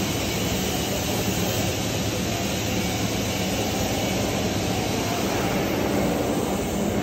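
Steady mechanical drone of workshop machinery with a low, even hum.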